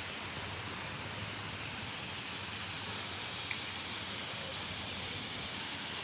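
Steady outdoor hiss with a brighter high band, and one faint short tick about three and a half seconds in.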